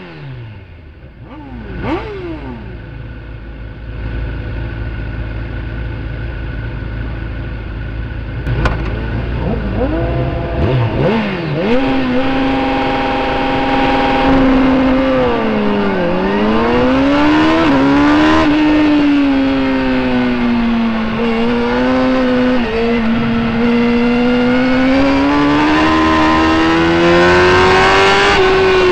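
Racing superbike's engine recorded onboard: a couple of quick revs near the start, then a low steady rumble. About eleven seconds in it pulls hard, its pitch climbing, dropping sharply a few seconds later, then rising and falling again as the bike is ridden on the circuit.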